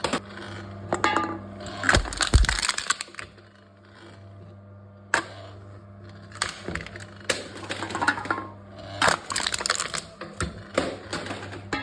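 Aluminum drink cans crushed by a can-crushing machine: bursts of crinkling, crackling metal and sharp clicks come again and again, with a short lull partway through. A steady low hum runs under the first half.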